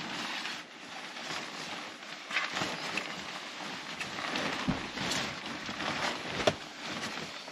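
Rustling and swishing of a synthetic comforter being unfolded, flapped and spread over a mattress, in uneven swells, with a soft thud about two-thirds of the way in and a sharp knock near the end.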